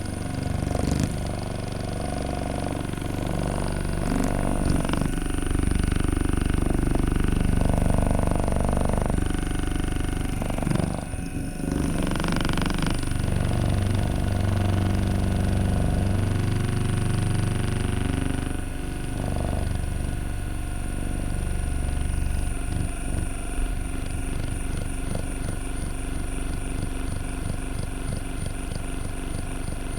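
Handheld percussion massage gun running, its motor buzzing as it works against muscle, its pitch changing several times as the pressure shifts.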